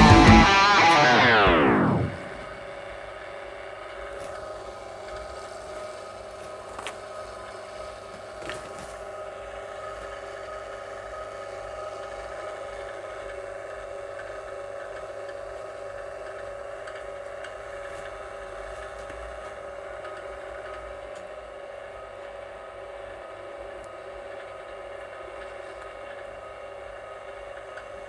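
Guitar music that slides down in pitch and stops about two seconds in, followed by a steady electrical hum with a couple of faint ticks.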